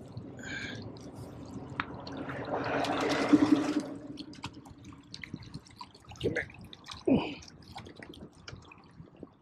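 Hooked striped bass thrashing and splashing at the surface beside a kayak, loudest about three seconds in, then drips and small splashes.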